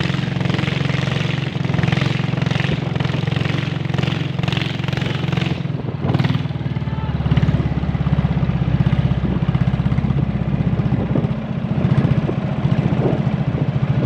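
Small boat engine running steadily as it pushes a narrow canoe through the water, with a hiss of water and wind over it at first; about six seconds in the engine note deepens and the hiss fades.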